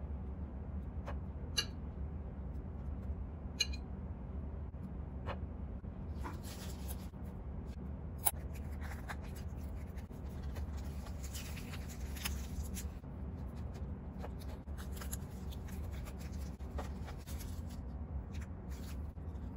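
Food being handled on a tray: a few light clicks of chopsticks setting down radish slices, then a sheet of roasted seaweed crinkling and rustling as it is folded over, over a steady low hum.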